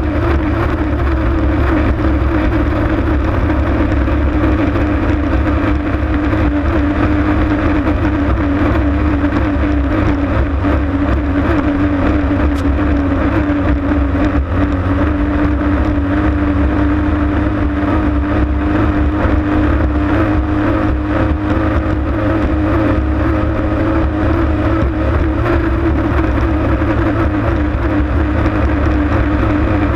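Racing hydroplane's engine running hard at a steady, nearly unchanging pitch, heard from on board the boat over a constant low rush.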